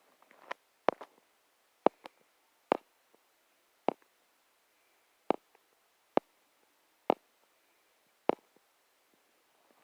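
A series of about eight sharp clicks, roughly one a second and slightly uneven, from a small object being handled.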